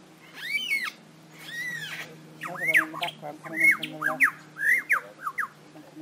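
Superb lyrebird singing a varied string of loud whistled calls. Two arching notes come first, then a quicker run of sharp upward and downward sweeps.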